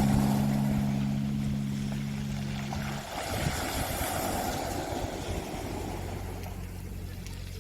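Sustained low music tones fade out about three seconds in, then a wave washes over a pebble beach with one swelling and receding rush, over a faint steady hum.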